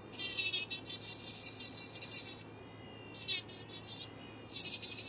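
Serio electric nail drill grinding the side edge of a toenail with a diamond bit: a high-pitched buzzing whine in three strokes, a long one at the start, a short one about three seconds in and another near the end, with the motor's low hum between.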